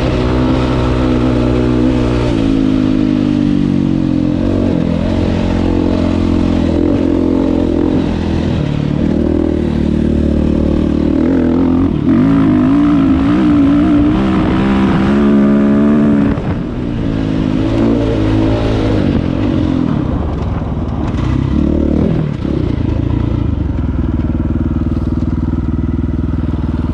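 Dirt bike engine running under load, its pitch rising and falling with the throttle. It is loudest from about twelve to sixteen seconds in, dips briefly twice, then settles to a steadier, lower note near the end.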